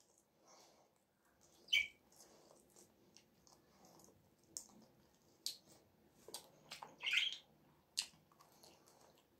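Faint wet lip smacks and sucking from a person gnawing meat off a turkey bone: a handful of short separate sounds, with a longer slurp about seven seconds in.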